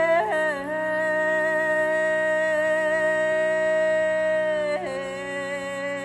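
A woman singing long held notes over the steady drone of a shrutibox. Her voice steps down in pitch about half a second in and again near the end.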